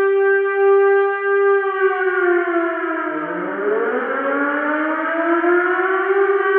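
Typhoon emergency alert siren tone: a steady held note that, about two seconds in, slides down to a much lower pitch around three seconds, then climbs back up to the same steady note.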